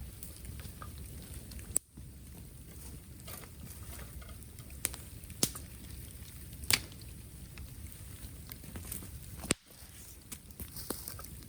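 Bamboo bonfire crackling, with about five sharp pops and snaps scattered through it over a steady low rush.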